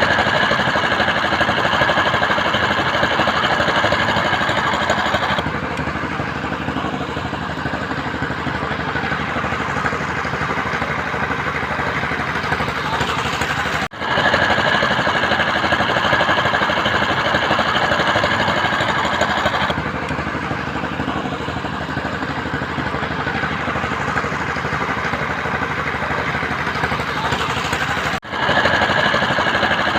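Construction machinery engine running steadily with a rapid rattle, breaking off briefly about fourteen seconds in and again near the end.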